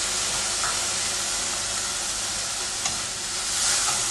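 Onion, ginger, garlic, chilli and just-added frozen peas sizzling in oil and ghee in a wok, stirred with a wooden spatula. A single light knock a little before three seconds in.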